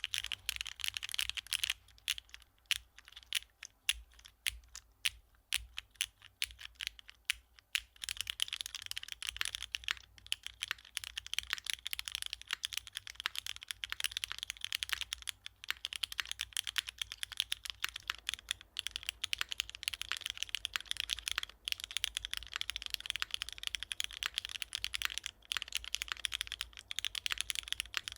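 Typing on a custom F1-8X V2 mechanical keyboard with Cherry MX Black linear switches and GMK Maestro keycaps, with a clean, clacky keystroke sound. Slower, separate presses give way to fast continuous typing about eight seconds in.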